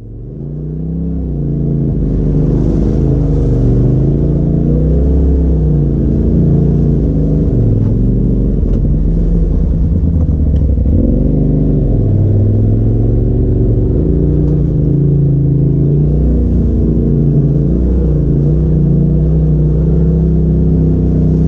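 Side-by-side UTV engine running, heard from the driver's seat, its pitch rising and falling as the throttle changes. It fades in over the first two seconds.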